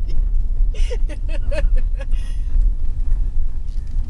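Chevrolet Colorado ZR2 pickup driving over a dirt course, heard from inside the cab: a steady low rumble of engine and running gear. A short burst of laughter about a second in.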